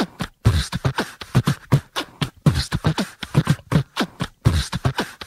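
Beatboxing: a steady beat of mouth-made kick drums and hissing snare and hi-hat sounds, the pattern repeating about every two seconds.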